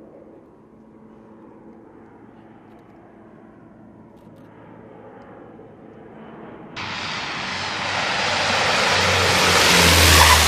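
A faint distant aircraft hum, then about two-thirds in an abrupt jump to the loud engine and propeller noise of a CN-235 twin-turboprop transport close by, growing louder as it rolls along the runway, with a low propeller drone underneath.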